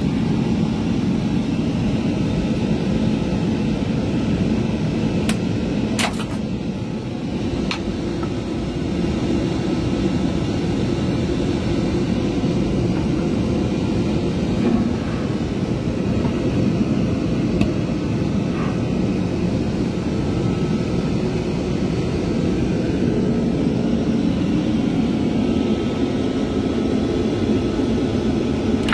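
Steady jet airliner cabin noise in flight: an even, low rumble of engines and airflow, with a few sharp clicks around six and eight seconds in.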